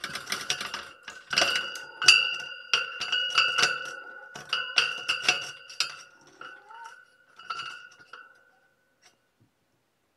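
An empty used can knocked about by a cat, clinking and rattling over and over with a ringing metallic tone; the clinks thin out and stop about eight seconds in.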